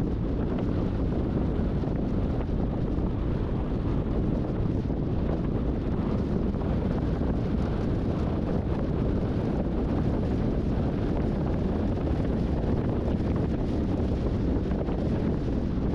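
Steady low rushing of wind buffeting the microphone, played back at double speed.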